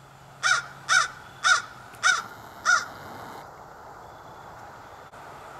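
A crow cawing five times in a quick, even series, about half a second apart, over the first three seconds.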